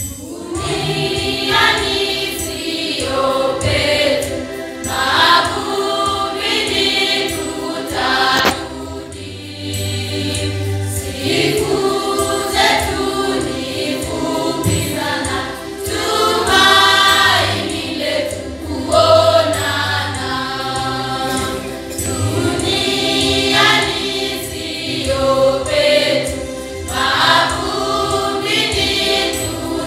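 Youth choir singing a hymn, many voices together in sung phrases.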